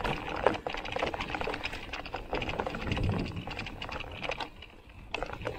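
Electric mountain bike rattling down a rough dirt singletrack: a dense run of quick clicks and knocks from the bike and tyres over the bumpy ground, under a low rumble. It thins out and gets quieter about four and a half seconds in as the bike reaches smoother ground, with one last sharp click after.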